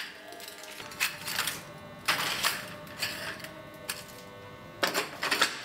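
Ceramic tiles clinking and clattering against one another as they are handled and stacked, in short clusters of sharp clacks: about a second in, around two seconds, and again near the end.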